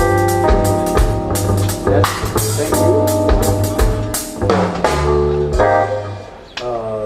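A band playing: drum kit, bass and a keyboard such as an organ or piano, with sustained chords over the beat; the playing dies away about six seconds in.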